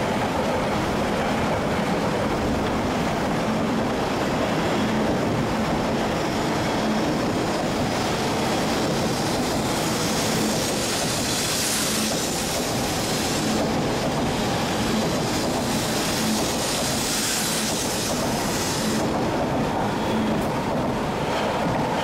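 E7/W7-series Shinkansen train running along a station platform. A steady rumble runs throughout, and a brighter hiss from the passing cars swells from about ten seconds in and drops away near nineteen seconds.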